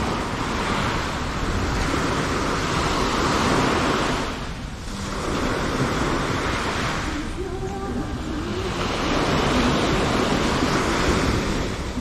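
Small waves breaking and washing up on the beach at the water's edge. The rush of surf swells and eases in three surges, dropping off briefly about four and a half and seven and a half seconds in.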